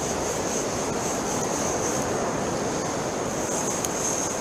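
Steady wash of sea surf on the beach, mixed with wind on the microphone, with a thin steady high whine running under it.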